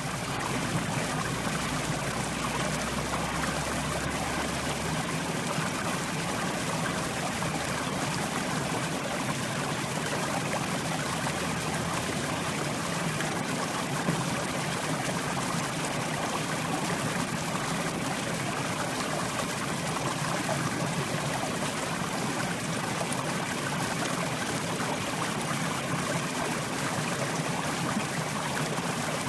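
Mountain river flowing over rocks: a steady rush of running water.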